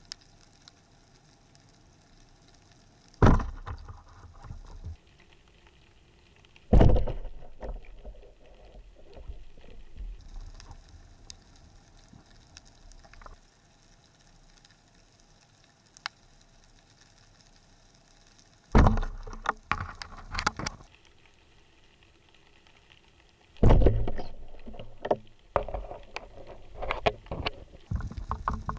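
Underwater sounds of a speargun and its rig: four sudden loud clacks, each trailing off in a second or two of rattling. A busier run of smaller clicks and rattles follows the last clack, once the spear shaft has been fired and its line is out.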